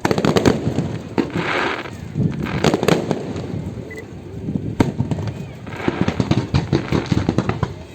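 Fireworks going off: a rapid series of sharp bangs and crackling bursts, thickest near the start, about three seconds in and again in the last few seconds.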